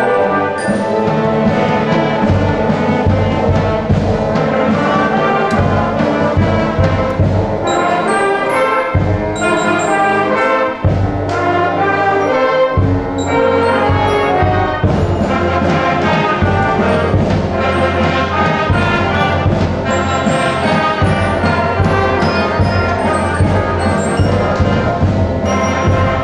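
Middle school concert band playing a piece together, brass and woodwinds over timpani and other percussion.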